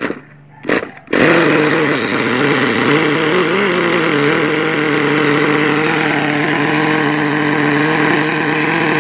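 Small model nitro two-stroke engine catching about a second in, after two short bursts, then running loud at high rpm. Its pitch wavers for a couple of seconds and then settles into a steady note.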